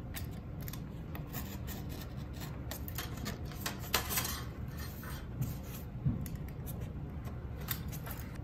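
Utility knife blade drawn along a metal ruler, scoring and slicing through white card in a series of short scratchy strokes with a few clicks.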